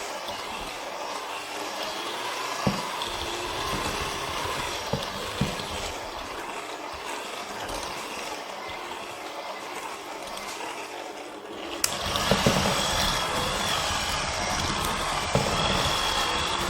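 Electric hand mixer running steadily, beating flour into cake batter, with a few sharp clicks as the beaters knock the bowl. About twelve seconds in, the sound changes abruptly and becomes brighter.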